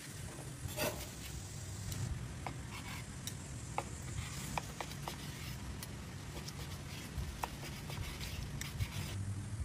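A flat-top griddle's low steady hum with a soft sizzle, broken by scattered sharp taps as a chef's knife slices grilled steak against a cutting board.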